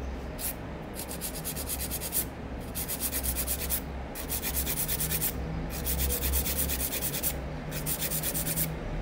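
Hand nail file rasping back and forth over a cured gel nail extension in quick, even strokes, with a few brief pauses, as the side of the nail is filed flat and thinned into shape.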